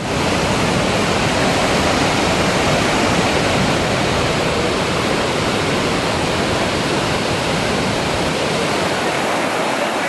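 Loud, steady rush of water from Iguazu Falls at the Devil's Throat, huge masses of water plunging into the gorge.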